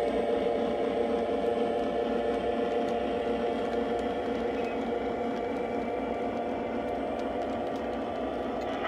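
Lionel O-gauge model freight train running past: a steady whir and rumble of tank cars rolling on three-rail track, mixed with the Legacy SW8 switcher's diesel engine sound, easing off slightly as the train moves on.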